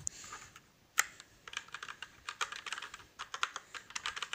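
Marvo Scorpion KG922 mechanical keyboard with red linear switches being typed on, noisier than expected: one sharp key strike about a second in, then a quick run of key clacks.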